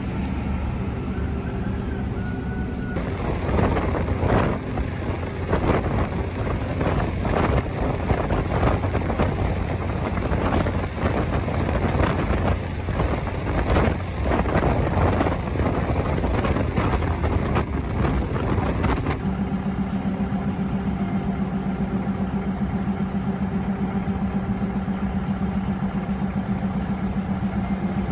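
Railway noise: a train running with loud rushing and clattering that cuts off abruptly about two-thirds of the way through, leaving a diesel engine idling with a steady low hum.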